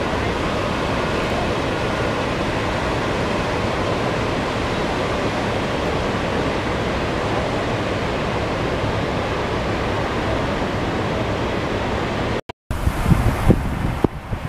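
Steady rushing of the Reversing Falls tidal rapids, whitewater churning as the tide runs out toward the sea. About twelve seconds in the sound cuts out for a moment and comes back with gusts of wind buffeting the microphone.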